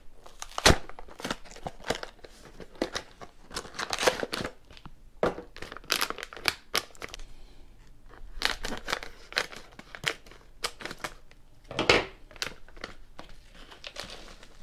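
Paper and plastic packaging of a batter-mix box crinkling and tearing as it is opened, with its inner pouch cut with scissors: a run of irregular sharp crackles and snaps, the loudest about a second in and again near the end. Near the end the dry mix is poured out of the pouch onto a paper plate.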